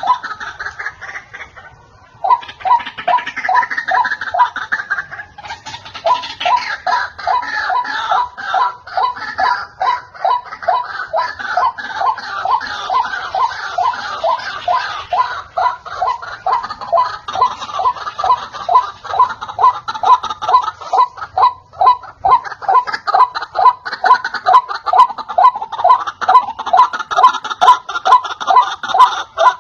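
White-breasted waterhen calling: a fast, steady run of harsh repeated notes, about four a second, with further calls overlapping above them. There is a brief break about two seconds in.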